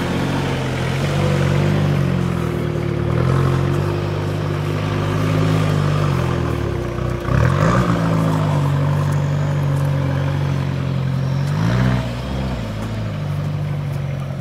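Off-road 4x4 engine working over rough ground, its revs rising and falling again and again. About halfway through the revs drop sharply and then surge, and there is another quick rev blip near the end.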